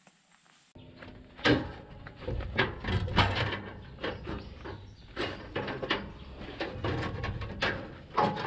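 Steel band blade of a portable bandsaw mill being worked off its wheels by gloved hands: a run of irregular clanks, clicks and scrapes of the blade against the wheels and housing.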